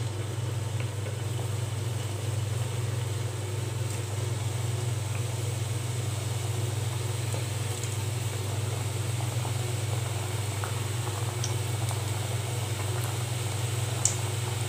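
Khaja dough pieces deep-frying in hot oil in an aluminium kadai, sizzling steadily with a few small pops, over a louder steady low hum.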